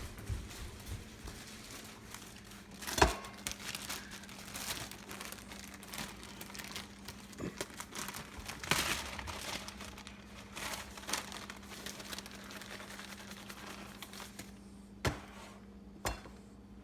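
Plastic tortilla bag crinkling as it is handled, in irregular rustles. A few sharp knocks come about three seconds in and twice near the end, over a faint steady hum.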